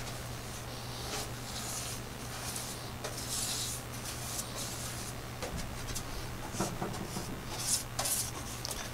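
Paintbrush strokes spreading thick POR-15 rust-preventative coating over a steel car floor pan: soft swishing rubs, the longest about three seconds in and another near the end, with a few light clicks, over a steady low hum.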